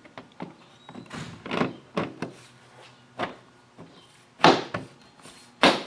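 Plastic clips of a GMC Terrain's chrome liftgate trim panel snapping into place as the panel is pressed and tapped onto the liftgate. A string of dull knocks and snaps, the two loudest near the end.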